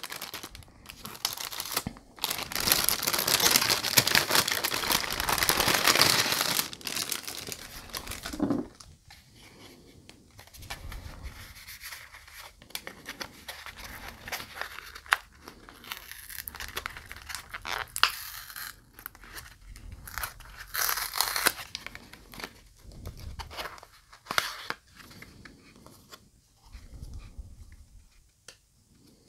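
Paper being torn open and crinkled: a loud stretch of rustling and tearing for several seconds, then quieter, scattered rustles of paper and tissue paper as things are unwrapped, with another brief loud rustle later on.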